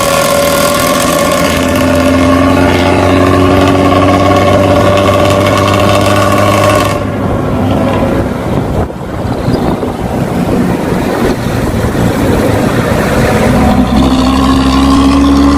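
Bus diesel engine with a 'knalpot ngorok' (snoring) exhaust, pulling under throttle with a slowly rising note. About seven seconds in the note drops off, as at a gear change, and it climbs again near the end.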